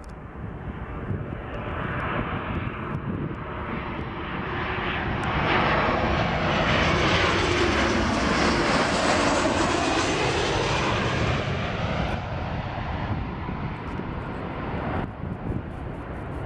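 Boeing 737-700 jet airliner's CFM56 turbofan engines on landing approach, passing low overhead: a rushing jet roar that builds to its loudest about halfway through and then fades as the aircraft moves away.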